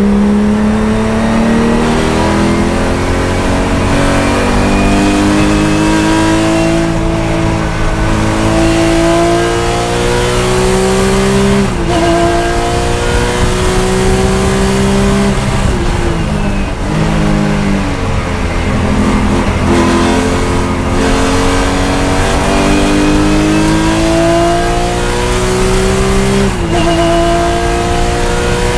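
Porsche 996 GT3 Cup race car's flat-six engine at full throttle, heard from inside the cockpit, its pitch climbing steadily through the gears, with sharp drops at upshifts about twelve seconds in and again near the end. In the middle it comes off the throttle and the revs fall and jump about through braking and downshifts before it pulls hard again.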